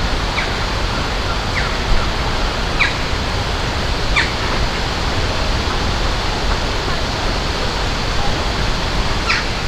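Steady rushing of flowing water, an even hiss with no let-up, with a handful of short high-pitched sounds standing out above it now and then.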